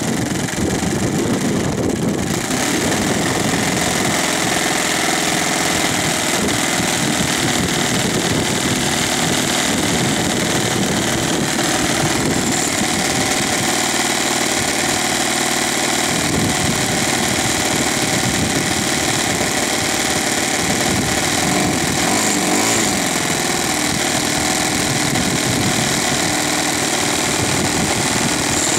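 Thunder Tiger 52 four-stroke glow (nitro) engine on a radio-controlled model plane, running steadily.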